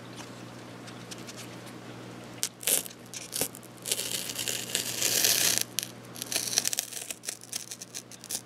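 X-Acto hobby knife slicing through EPP foam along a metal ruler: a crackly, tearing scrape in several uneven strokes that start about two and a half seconds in, the longest and loudest a little past the middle.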